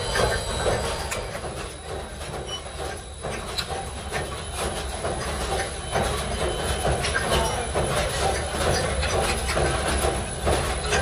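Electric motor-driven foundry sand mixer running, its paddles churning a trough of black sand, with a steady low rumble and constant metallic scraping and clatter.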